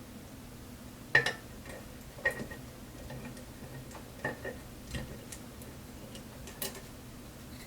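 A handful of sharp, scattered metallic clicks and taps, about six, some with a short ring, from a lock cylinder and small tools being handled.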